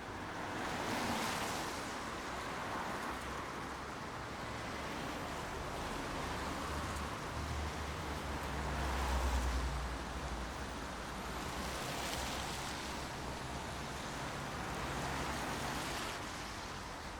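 Steady rain noise that swells and eases several times, with a low rumble near the middle.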